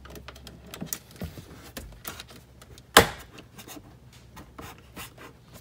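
Small clicks and knocks of parts being fitted into a car's door handle, with one loud sharp click about three seconds in.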